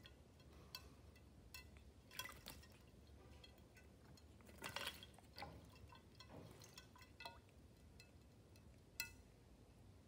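Quaker parrot (monk parakeet) bathing in a shallow glass bowl of water: faint, scattered small splashes and drips, with louder splashes about two seconds in, around the middle and near the end.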